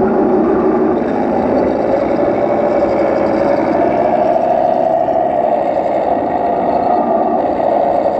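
Radio-controlled scale model tank and armoured car driving on a dirt track, giving a steady engine-like running sound with a slowly wavering pitch.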